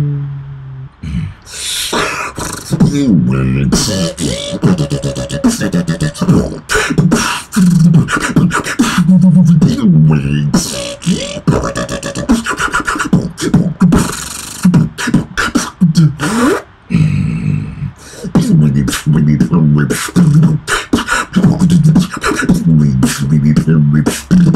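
Human beatbox in dubstep style: mouth-made kick and snare hits in a fast, dense rhythm, with wobbling bass tones between them. The full beat starts about a second and a half in, and there is a short break a little past the middle.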